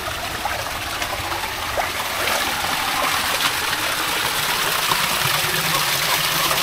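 Thermal spa pool water running and splashing steadily, getting louder about two seconds in.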